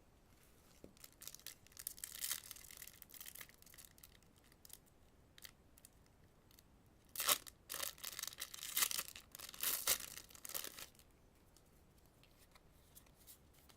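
Yu-Gi-Oh! booster pack's foil wrapper being torn open and crinkled by hand, in two spells of tearing and rustling, the louder one in the second half.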